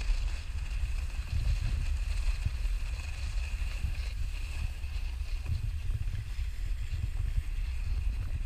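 Wind buffeting a pole-mounted action camera's microphone as a low, gusting rumble, over the steady hiss of a snowboard sliding across fresh snow.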